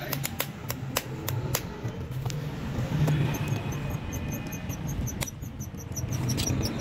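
Sharp metal clicks and taps from a brake master cylinder and a steel rod being worked into its bore during a seal change, a quick run of them in the first couple of seconds, then a few more, over a steady low hum.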